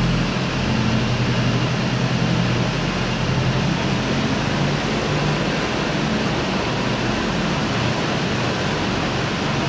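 Toyota Hilux driving: a steady low engine hum under an even rushing noise.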